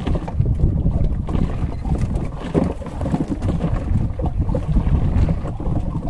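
Wind buffeting the microphone on an open boat deck: a low, uneven rumble that swells and drops from moment to moment.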